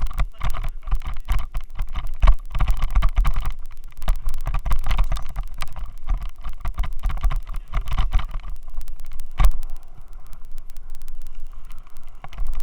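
Xiaomi Yi action camera rattling in a loose helmet mount: a dense, irregular clatter of knocks and clicks over a low rumble, the mount's vibration reaching the camera's microphone. It is louder through the first nine seconds, with one sharper knock, then eases for the last few seconds.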